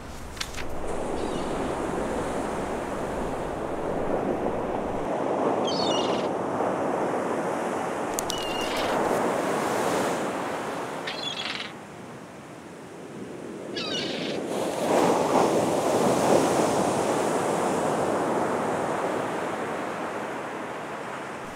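Ocean waves rushing in and washing back in slow swells, with a few short bird calls over them.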